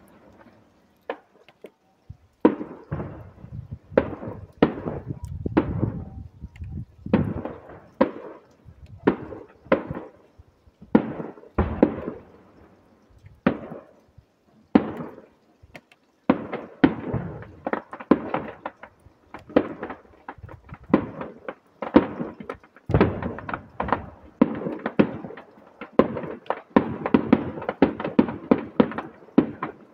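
Distant aerial firework display: a run of sharp bangs as shells burst, each with an echoing tail. The bangs start about two seconds in, come about once a second, then grow faster and build to a rapid barrage near the end.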